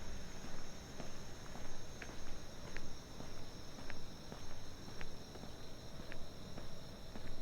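Steady night chorus of crickets and other insects, a continuous high trill, with the walker's footsteps landing at a regular walking pace.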